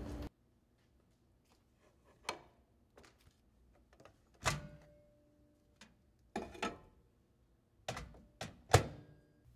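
Half a dozen sharp knocks and clacks at uneven intervals, with quiet between them; the loudest comes near the end.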